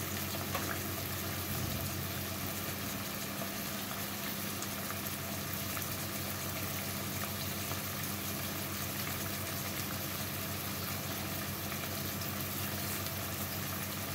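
Steady hiss of food cooking on the stove, with a low steady hum underneath and a few faint clicks.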